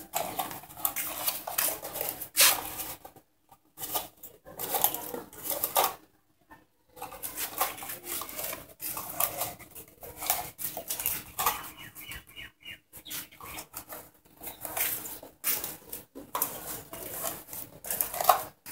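Irregular clinks, knocks and clatter of hard objects being handled and set down, with short pauses.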